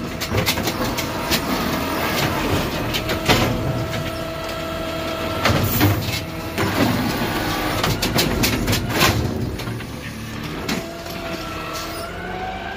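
An automated side-loader garbage truck's hydraulic arm grips a wheeled trash cart, lifts it and tips it into the hopper. The cart and the falling trash knock and clatter repeatedly over the running truck, and the hydraulics whine steadily at times.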